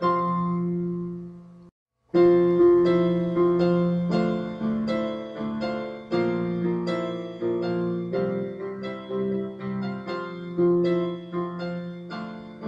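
Slow background piano music. A held chord dies away, the music breaks off for a moment about two seconds in, then the melody starts again.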